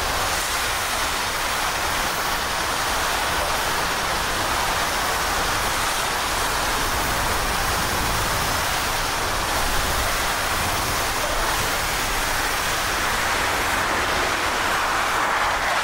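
Hurricane wind and heavy rain: a steady rushing noise with no let-up.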